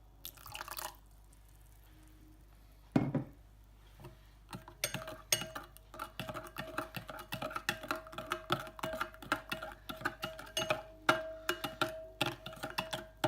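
A brief pour of rice wine into a bowl of thick sauce and a single knock, then a spoon stirring the sauce fast, clinking against the bowl several times a second while the bowl rings.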